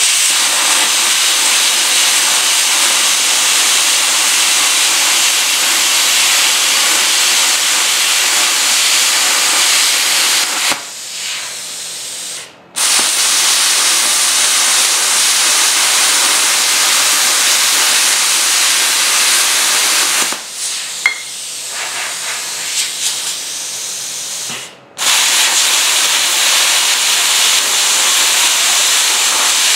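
Plasma cutter arc hissing steadily as the torch cuts through metal plate. Twice the cut stops and the sound drops to a quieter hiss for a few seconds before the loud hiss resumes.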